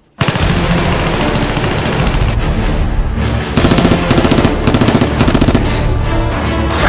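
Rapid automatic-gunfire sound effect over background music: a long fast burst that starts abruptly, then after a short lull a slower series of shots in the middle.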